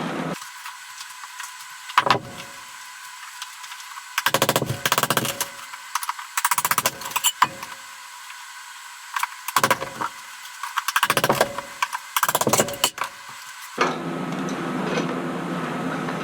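Hammer driving a chisel into ceramic wall tile in short bursts of rapid strikes, with chipped tile clattering, after a single sharp knock about two seconds in.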